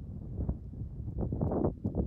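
Wind gusting across the microphone: a low, uneven buffeting noise that swells louder about a second in.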